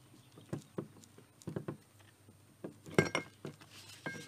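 Light metal clinks and knocks as a Dana 44 differential carrier is worked up out of its ring gear over a metal sheet pan. The loudest clink comes about three seconds in and rings briefly.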